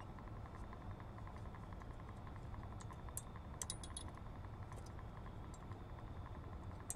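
A few faint metallic clicks and clinks as brake pads and caliper parts are test-fitted, in a cluster a few seconds in and again near the end, over a low steady hum.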